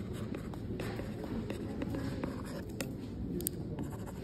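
Stylus writing on a tablet screen: light, irregular taps and scratches of the pen tip on the glass.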